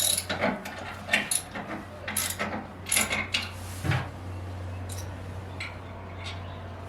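Small metal clinks and knocks of tools and mounting hardware being handled, a quick string of sharp taps in the first four seconds, then only a steady low hum.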